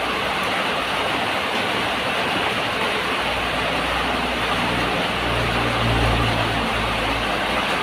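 Heavy rain pouring down as a steady, loud hiss. A low rumble swells under it from about three seconds in and fades near the end.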